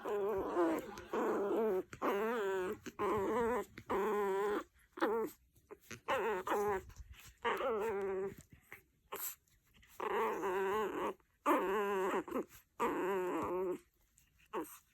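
Chihuahua growling and whining in a long run of drawn-out, wavering calls of about half a second to a second each, broken by short pauses, the grumbling of an angry small dog.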